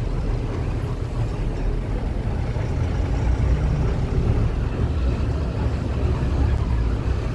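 Steady low rumble of engine and road noise, heard from inside a moving vehicle.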